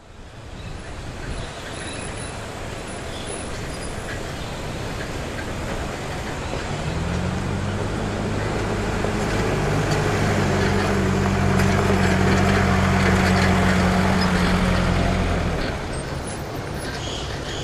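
A four-wheel-drive SUV approaching on a gravel road and passing close: engine running with tyre noise on the gravel. It grows louder to a peak, and the engine note drops away about fifteen seconds in.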